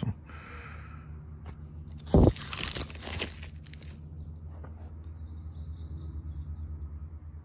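A page of a ring-binder photo album with plastic sleeves being turned: a thump about two seconds in, then about two seconds of plastic crinkling and rustling.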